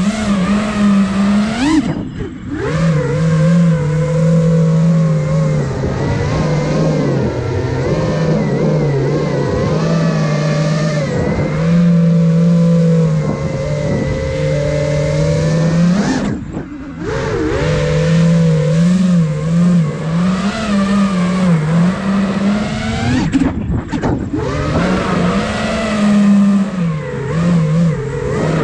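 Brushless motors and propellers of an iFlight Nazgul Evoque F5 five-inch FPV quadcopter whining in flight, their pitch rising and falling with the throttle. The sound drops away briefly three times: about two seconds in, a little past the middle, and near the end.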